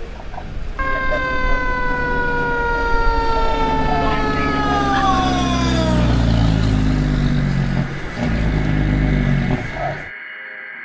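Fire engine passing with its siren sounding: one long siren tone that slides slowly down in pitch, then drops away about six seconds in, over a low engine rumble that grows stronger in the second half. The sound cuts off abruptly near the end.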